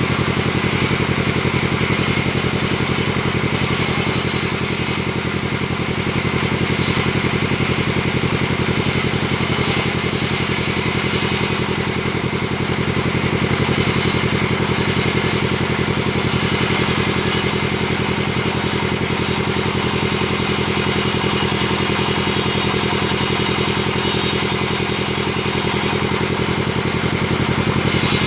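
Band sawmill running steadily: a constant engine drone with a high hiss that swells and fades every second or two.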